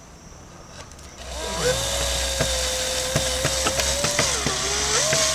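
Cordless drill/driver driving a screw to hold a thin stone veneer piece: the motor spins up about a second in and runs with a steady whine, drops in pitch as it bogs under load near the end, then picks back up.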